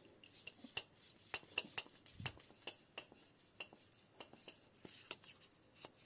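Small metal parts clicking and clinking as they are handled: about a dozen sharp, irregular clicks, with one duller knock about two seconds in.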